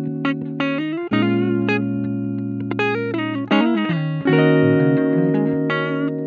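Background music with plucked guitar, its notes changing every second or so over a steady low accompaniment.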